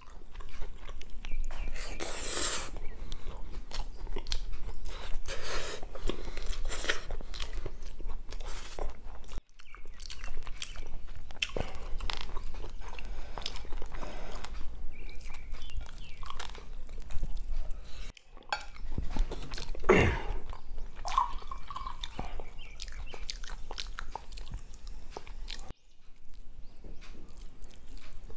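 Close-miked chewing and wet mouth sounds of someone eating string hoppers with a soft potato and cauliflower curry, with many small clicks and smacks. The sound drops out briefly three times.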